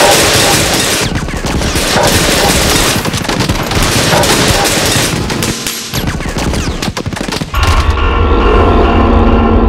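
A dense, rapid rattle of gunfire like a machine gun, loud and continuous. About three-quarters of the way through it breaks off and music with a deep bass drone comes in.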